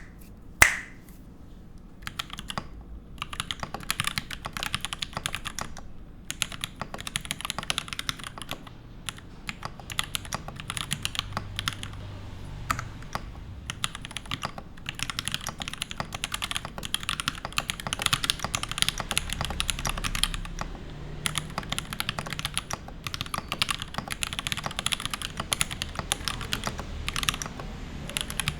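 Continuous typing on a gasket-mounted mechanical keyboard with lubed C3 Tangerine linear switches, a brass plate and GMK keycaps: rapid keystroke clacks in runs, with brief pauses between bursts. Two loud sharp clicks come at the very start, before the typing begins.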